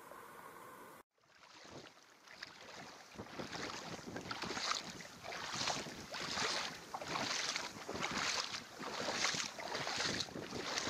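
Someone wading through a shallow stream: water splashing in a regular rhythm, roughly one splash every two-thirds of a second, after the sound cuts out briefly about a second in.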